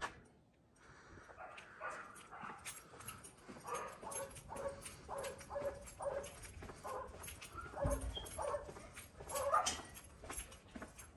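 A dog barking repeatedly, short calls about two a second.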